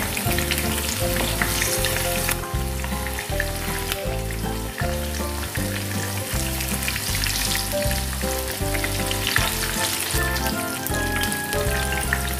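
Chicken pieces sizzling and crackling in hot coconut oil in a non-stick pan, about four minutes into frying, while a spatula turns them over. Background music with a steady bass line plays underneath.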